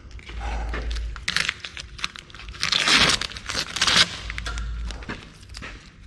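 Masking paper and tape being pulled off and crumpled: crinkling and tearing in several bursts, loudest about three seconds in, with low handling bumps.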